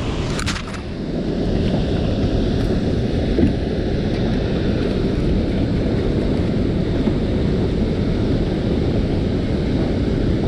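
Steady low rumble of wind buffeting the action-camera microphone, mixed with the rush of water pouring through the dam's open flood gates.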